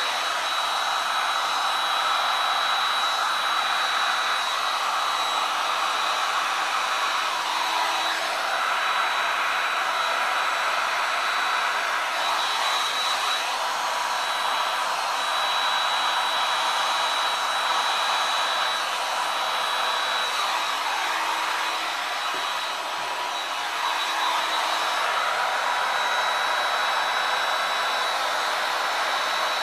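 Handheld DeWalt blower running steadily: a rushing air stream with a thin high whine, dipping briefly about three-quarters of the way through.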